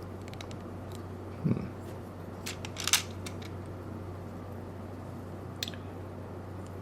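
A few short, sharp clicks of hard plastic model-kit parts being cut from the runner and fitted: a dull knock about a second and a half in, the loudest click near three seconds in, and a last one near the end, over a steady low hum.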